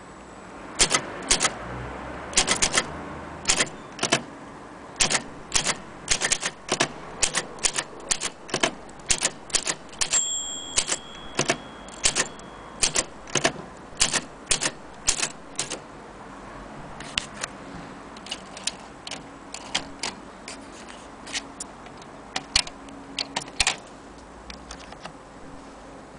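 Typing on a vintage Olympia SM3 Deluxe portable manual typewriter: typebars strike the platen in quick irregular runs of clacks, thinning to slower, scattered keystrokes in the last third. A single ringing tone sounds about ten seconds in and fades over a couple of seconds.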